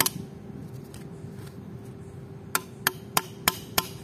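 A hammer tapping the aluminium connector sleeves of a 4-core cable joint to press them onto the conductors in place of a crimping tool. One sharp tap at the start, then after a pause of about two and a half seconds a run of five quick taps, about three a second.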